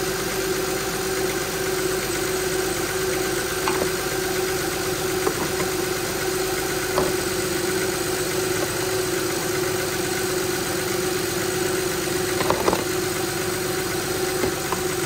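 Honda 3.5L V6 engine idling steadily, with the newly installed power steering pump turning quietly. A few light clicks are heard, the last about twelve seconds in.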